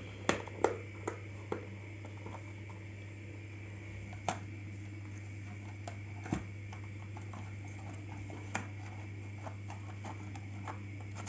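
Scattered plastic clicks and knocks from handling a robot vacuum, as its dustbin is taken out and opened to check the collected dog hair, over a steady low hum.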